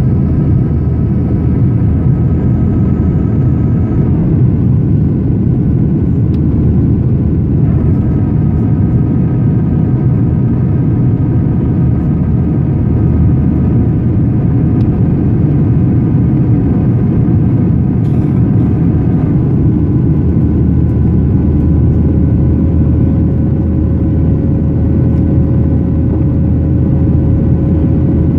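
Boeing 737-800 cabin noise in the climb after takeoff, heard from a window seat behind the wing: a loud, steady roar of the CFM56 jet engines and rushing air. Over it, faint whining engine tones drop out and return. About two-thirds of the way in they change to a single lower hum.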